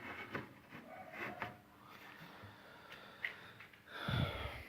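Faint scattered light clicks and taps in the first second and a half, then a short, louder rustling sound about four seconds in.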